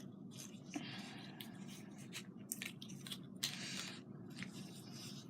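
Faint scissors snipping through craft ribbon, with rustling as the ribbon is handled.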